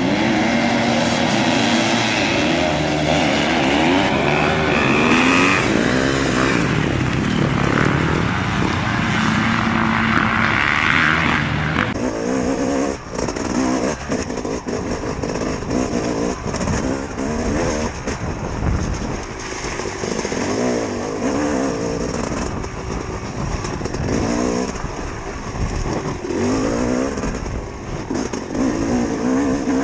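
Dirt bike engines revving and shifting under race load, the pitch rising and falling. The sound changes abruptly about twelve seconds in, where one stretch of riding cuts to another.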